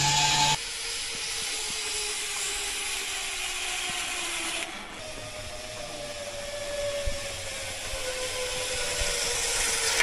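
Zipline trolley pulleys running along the steel cable: a steady whirring hiss with a faint whine that falls slowly in pitch over the second half. The sound shifts abruptly about half a second in and again near five seconds.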